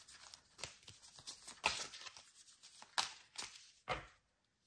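A deck of oracle cards being shuffled and handled by hand: a string of short papery flicks and rustles, the sharpest about one and a half and three seconds in, stopping about four seconds in.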